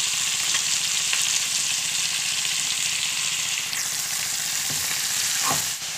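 Pork and freshly added papaya shoots and leaves stir-frying in oil in a wok: a steady sizzle, with a few faint clicks of the metal spatula in the first seconds.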